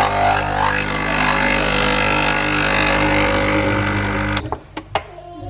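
Capsule espresso machine's pump buzzing steadily while it brews, cutting off suddenly about four and a half seconds in. A few sharp clicks follow.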